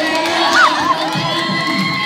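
Crowd of spectators, many of them children, cheering and shouting, with one long steady held tone sounding through the cheering.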